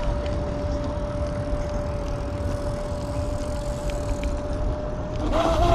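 Electric scooter at speed: wind rushing over the microphone with a steady high whine from the Kaabo Wolf King GTR's electric motors. Near the end the noise grows louder and a wavering pitched sound joins in.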